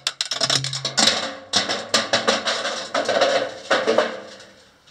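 Rapid knocking and rattling coming up a round metal mine chute from below, a quick irregular run of sharp strikes with a ringing echo.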